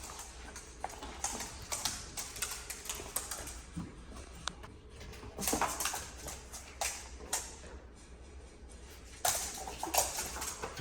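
Irregular clicks, taps and rustling, as of small objects being handled, over a steady low hum.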